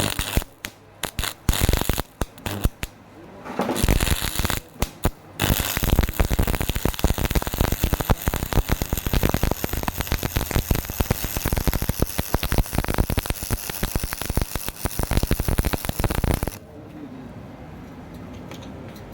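Stick-welding arc crackling as an electrode is run on thin galvanized pipe, stopping and restarting a few times in the first five seconds, then burning steadily before it cuts off suddenly near the end.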